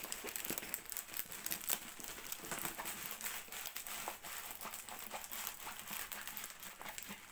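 Crinkling and rustling of a large diamond painting canvas and its paper release sheet as they are rolled up by hand, a steady run of small crackles.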